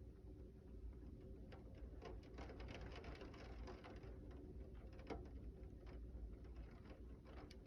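Wind-driven rain and small hail pattering, with scattered irregular ticks of drops and hailstones striking over a steady low wind rumble.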